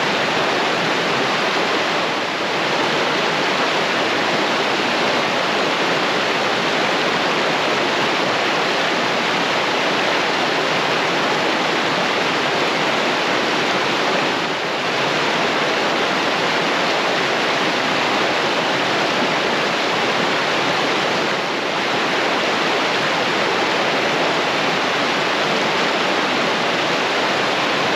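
Swollen mountain brook in snow-melt flood, rushing water making a loud, steady roar.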